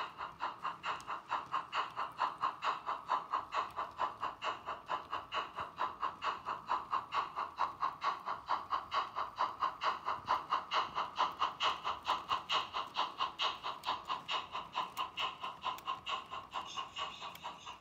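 Märklin HO model steam locomotive running, with a steady rhythmic chuffing at about five beats a second.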